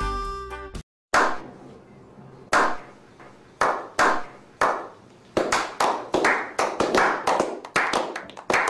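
Slow clap by a small group of men: single echoing hand claps about a second apart that come faster and overlap more as the others join in.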